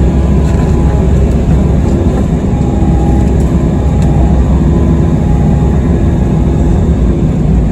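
Excavator's diesel engine running steadily at working speed, with a faint steady whine over the low drone.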